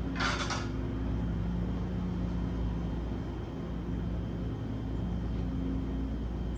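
A steady low hum with a few wavering tones, and a brief noise just after the start.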